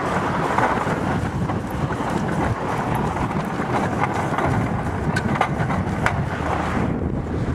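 Home-built bicycle railbike rolling along a railway track: a steady rumble and rattle of its wheels running on the rail, with a few sharp clicks scattered through it.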